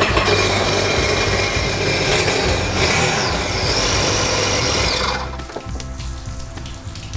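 Supercharged Sea-Doo Rotax 4-TEC engine starting and running with a dense, even whir after its rebuild, then cutting off suddenly about five seconds in. This is the first test start after a supercharger failure and repair. Background music plays underneath.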